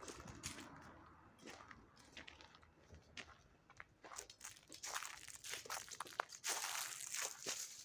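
Footsteps crunching through dry fallen leaves: irregular crackling crunches that grow louder and denser about halfway through.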